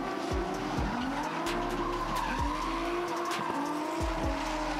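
Several drift cars sliding in tandem: engines revving up and down at high revs while their rear tyres skid and screech.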